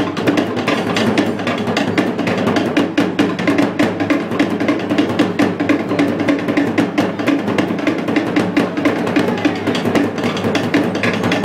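Tahitian drumming for ori Tahiti dance: fast, driving, unbroken strikes on wooden slit drums over a deeper drum beat.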